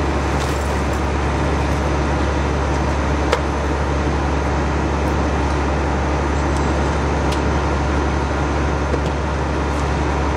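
A fire truck's diesel engine running steadily, with a strong constant low drone. There is one sharp click a little over three seconds in.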